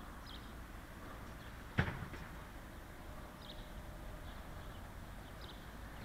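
A steady low background rumble with faint, short bird chirps every second or two, and a single sharp knock about two seconds in.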